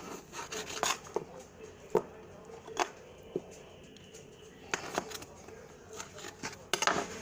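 Knife chopping Chinese sausage on a cutting board: irregular sharp taps and knocks with some rubbing and scraping between them.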